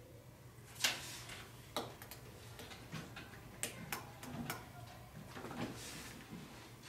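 Irregular clicks and knocks of pencils, pens and books handled on classroom desks, the loudest a sharp knock a little under a second in.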